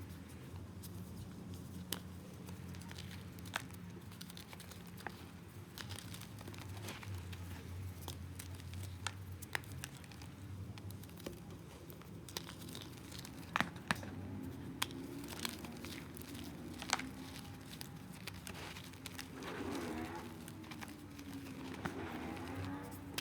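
Balls of reformed gym chalk being crushed and crumbled by hand: scattered sharp cracks and snaps over a soft crumbling, with a rubbing, grinding stretch near the end.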